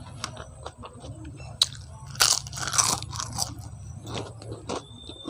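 Close-miked eating: wet chewing with small clicks, and a loud crunch of a crisp bite about two seconds in.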